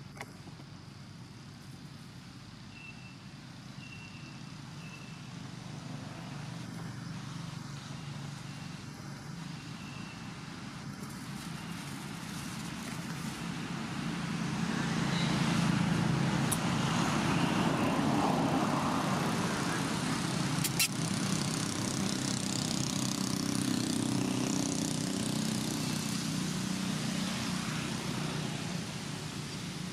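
A motor vehicle passing at a distance: a rumbling hiss that builds over several seconds, holds, then slowly fades. A few faint high chirps come early on, and there is one sharp click about two-thirds of the way through.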